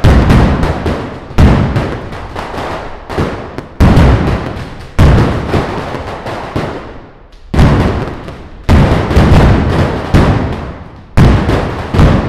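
Mascletà firecrackers (masclets) going off in rapid, dense volleys, coming in waves a second or two apart: each wave opens with a sudden loud blast and trails off in a rattle of smaller bangs, echoing off the walls of the narrow street.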